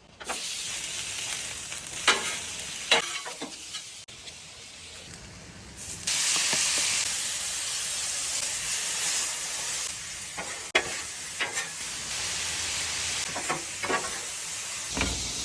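Chicken, broccoli and onion sizzling on a Blackstone flat-top griddle as they are stir-fried. The sizzle gets louder about six seconds in, with sharp clacks of a spatula on the griddle now and then.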